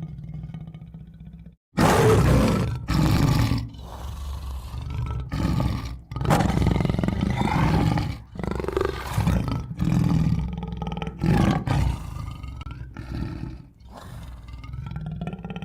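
Tiger roaring and growling in a series of loud, rough roars separated by short pauses, beginning about two seconds in.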